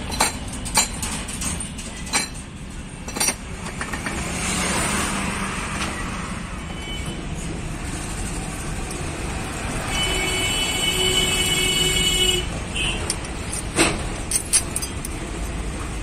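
Metal clinks and clicks of truck differential gears and case parts being handled and fitted together, a few near the start and a cluster near the end, over steady traffic noise. Past the middle a vehicle horn sounds for about two seconds.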